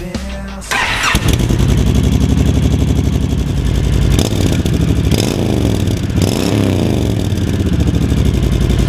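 Honda Fury's 1312 cc V-twin through its undrilled stock exhaust: it starts about a second in, then idles with a few throttle blips that rise and fall in pitch.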